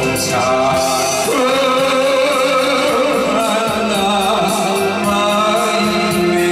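A man singing into a handheld microphone through the PA over instrumental accompaniment, holding long notes.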